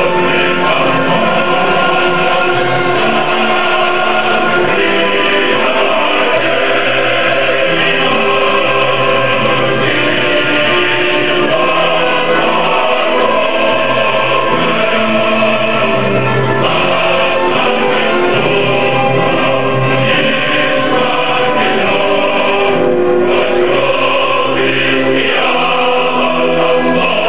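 Music: a choir singing.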